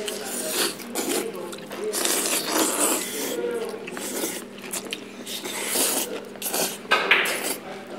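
Several people slurping and chewing black-bean-sauce noodles (jjajangmyeon): a string of wet, uneven slurps from different mouths, some long, some short.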